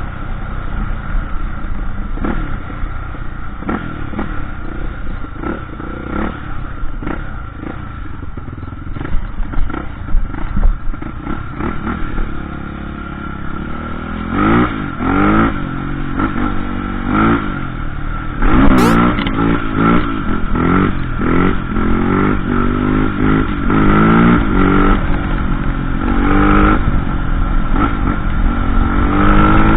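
Dirt bike engine running off-road, revving up and down repeatedly through the second half, with knocks and clatter from the bike over rough ground.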